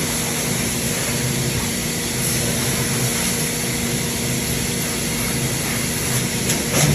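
Hydraulic power unit of a 400-ton Jaewoo forging press running with a steady hum. A couple of light clicks come near the end.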